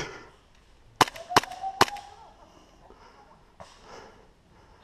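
Airsoft gas blowback pistol firing: one sharp shot, then three quick shots about a second in.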